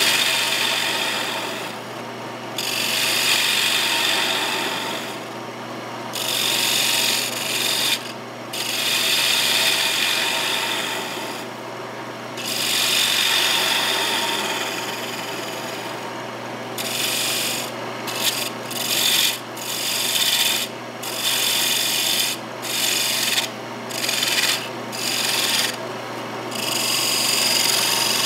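A turning tool cuts into a mahogany blank spinning on a wood lathe, hollowing its centre, over the lathe's steady hum. The cuts come as repeated hissing passes: long ones of two or three seconds in the first half, then shorter cuts of about a second each.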